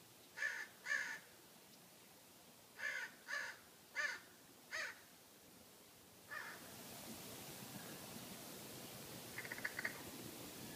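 A crow cawing: six harsh caws, two and then four more about two seconds later. About six seconds in, a steady rushing noise comes up and stays, with a quick run of ticks near the end.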